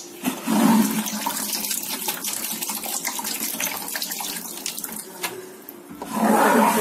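Water running and splashing, with louder rushes about half a second in and again near the end.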